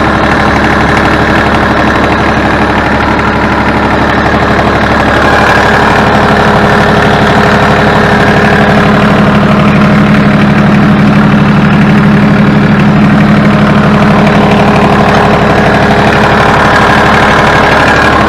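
Ford New Holland 1630's three-cylinder diesel engine running steadily close up, a little louder through the middle. There is no squeal from the hydraulic system now that the leaking rear remote valve has been resealed.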